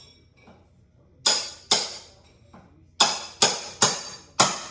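Hammer striking a steel pry bar with a ringing metallic clang, about six sharp blows in two bursts, driving the bar under a nail to pull it from the wall framing.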